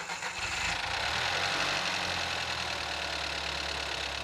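2002 Volkswagen GTI Mk4's engine idling steadily, just started on its newly installed battery.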